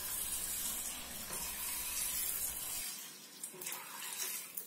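Water poured from a plastic bottle into a bowl of dried brown chana and horse gram, a steady splashing pour over the grains to rinse them, easing off near the end.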